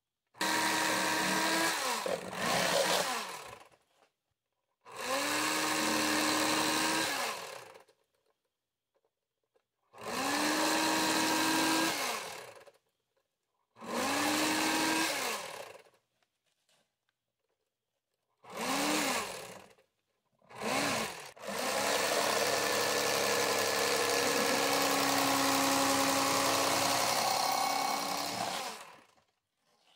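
Toastmaster electric fillet knife running in about eight separate bursts while slicing walleye fillets. Each burst rises in pitch as the motor spins up, hums while the blades saw through the fish, and drops away when the trigger is released. The longest run lasts about seven seconds near the end.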